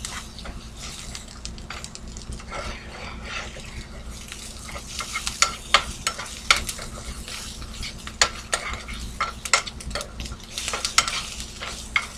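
Sliced onions frying in a nonstick skillet, sizzling steadily, with sharp clicks and scrapes of a utensil stirring and flipping them against the pan. The clicks come more often in the second half.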